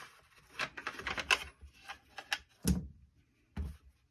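Rattling clicks of a Norinco Type 97 bullpup rifle being taken down by hand: the rear takedown pin is worked out and the back plate pulled off the receiver. Two heavier knocks follow in the second half.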